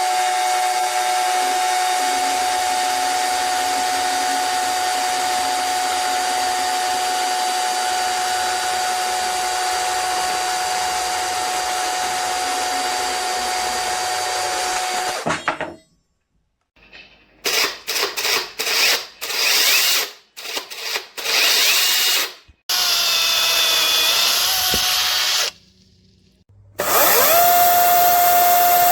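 Bosch UniversalChain 18 cordless 18 V chainsaw running with a steady whine for about fifteen seconds, then stopping. It is then switched on and off in a series of short bursts, runs for a few seconds with its pitch dipping briefly, and spins up again near the end.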